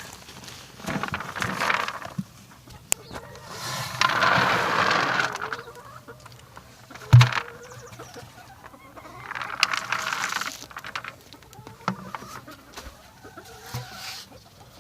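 Chickens clucking, with several rushes of rustling noise, the longest and loudest about four seconds in, and a single sharp knock about seven seconds in.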